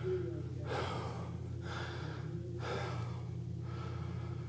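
A man breathing heavily while crawling in a cramped tunnel: two long, noisy breaths over a steady low hum.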